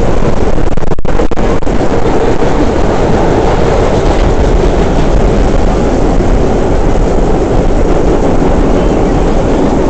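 Vintage R1/9 subway train running on the rails, heard from inside the car: a loud, steady running noise with a brief dip about a second in.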